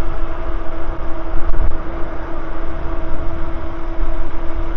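Wind buffeting the camera microphone on an electric bike cruising at about 25 mph, with a steady whine from the bike's electric motor underneath.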